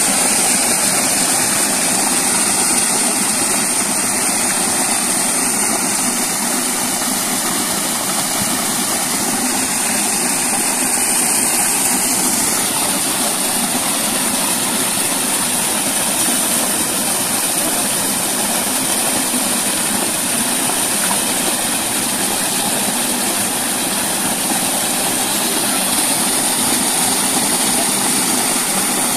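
Water gushing steadily from an irrigation pipe outlet and splashing into a pit, loud and unbroken.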